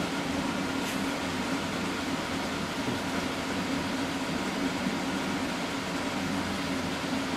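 Steady mechanical hum, with one faint click about a second in.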